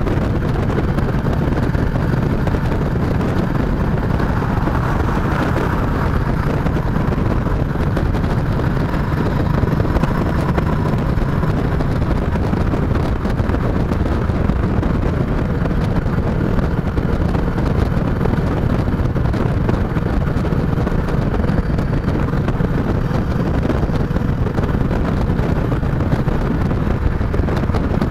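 Motorcycle, a chopper, running steadily at road speed, its engine note buried under wind rushing over the microphone.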